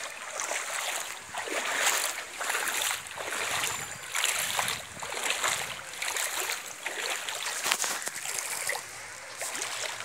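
Water rushing and splashing as it pours over a ledge in a wide cascade, a steady noise that rises and falls in uneven surges.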